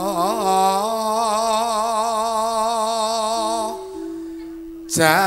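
A singer holding long, wavering notes with vibrato in a slow, unmeasured sung passage, over steady held accompaniment chords. The voice drops out a little before the end, then comes back in loudly.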